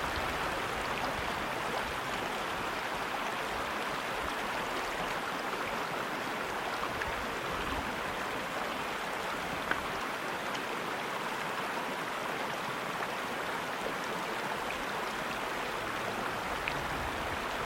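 Mountain creek running high with snowmelt runoff: a steady, unbroken rush of flowing water.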